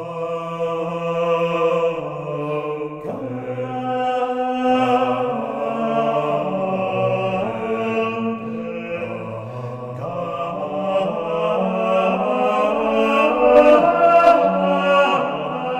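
A choir singing a slow chant, long held notes stepping up and down in pitch.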